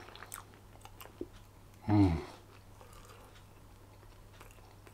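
A man chewing a mouthful of beef curry with his mouth closed, with faint, scattered wet mouth clicks. About two seconds in he gives one short "mmm" hum.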